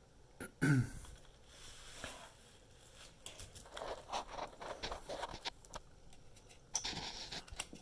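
Hands handling a drone's plastic body parts and cables: scattered light taps, scrapes and rustles, densest in the middle, with a louder scuffing rustle near the end.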